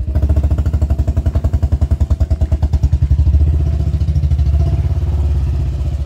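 Motorcycle engine running at a steady pace, with a fast, even pulsing beat.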